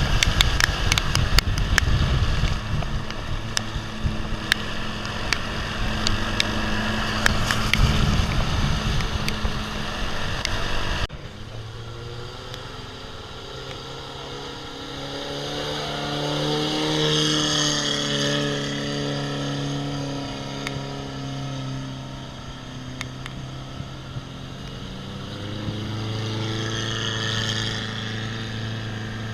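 Off-road vehicle on a rough ride: loud buffeting noise with many sharp rattles and knocks for the first ten seconds or so. After an abrupt change, a vehicle engine runs steadily, its pitch rising and falling as it revs up twice.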